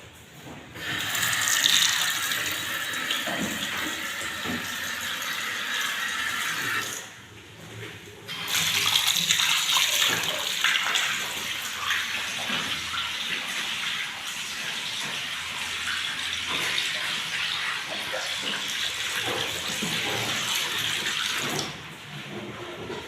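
Water running from a tap in two spells: one of about six seconds, then after a short break a longer one of about thirteen seconds.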